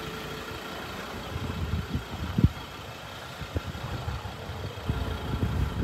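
A vehicle engine idling steadily, with a few short knocks, one about two and a half seconds in and several more near the end.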